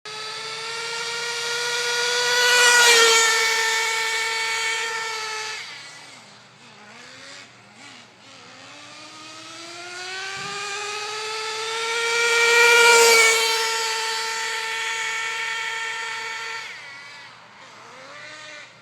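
A small RC car engine running at a high, steady pitch as the car makes two fast passes, loudest about three seconds in and again about thirteen seconds in. Between the passes the engine falls to a lower, wavering note and then climbs back up in pitch.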